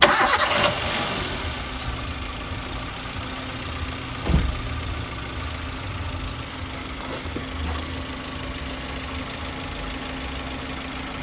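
2011 Toyota Avanza S's four-cylinder VVT-i engine idling steadily with a rough sound, which the uploader puts down to valve clearance that is too loose. It is louder for the first half-second, and there is a single thump a little over four seconds in.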